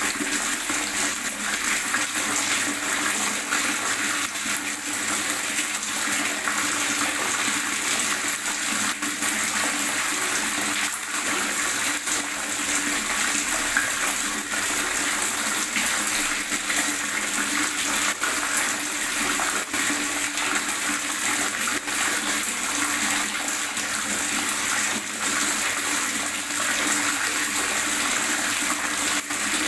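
Water gurgling and splashing, a steady, unbroken rush with a fine, irregular bubbling texture.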